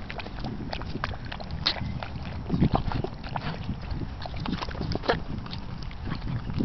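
Puppy lapping and splashing water in a rubber bucket: a run of quick, irregular wet clicks and slaps over a steady low rumble.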